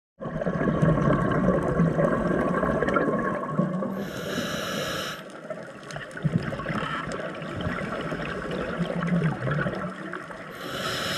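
Scuba regulator breathing underwater: bubbling exhalation for the first few seconds, a hissing inhalation about four seconds in, more bubbling, then another inhalation hiss near the end.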